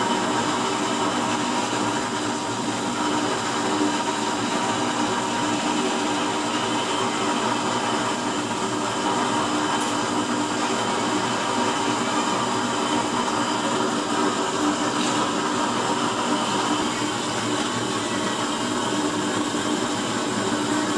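Used-oil burner stove running with a blue flame: a steady whirring rush of forced air and burning flame, with a constant hum under it.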